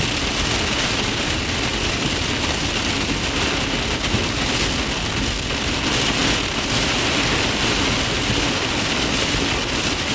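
Heavy rain beating steadily on a moving car's roof and windshield, mixed with tyre and road noise, heard from inside the car's cabin.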